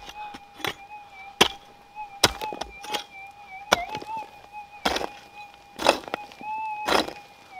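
About eight sharp strikes of a digging tool into the ground, roughly one a second, over the steady threshold hum of a gold-prospecting metal detector, which wavers slightly now and then.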